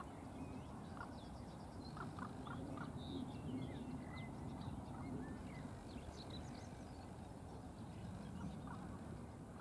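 Wild birds calling over a steady low background: many short, high songbird chirps and whistled glides, with a few brief, clipped lower calls, four of them in quick succession about two seconds in.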